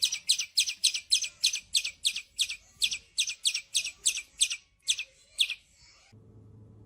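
Birds calling in a quick run of short, sharp, high-pitched calls, about four a second, from birds that sound angry at each other. The calls stop about five and a half seconds in.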